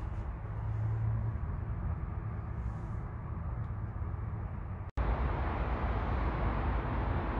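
Outdoor background noise: a steady low rumble with a hiss over it, no distinct events. It breaks off for an instant about five seconds in and comes back louder and fuller.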